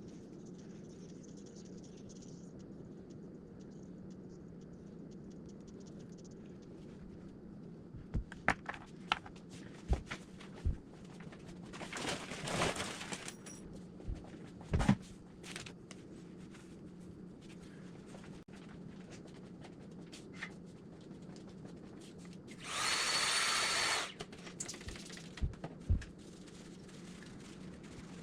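Small clicks and taps of tools and phone parts being handled on a repair bench, with a short rustle, then about a second of whirring small-motor noise near the end, over a steady low hum.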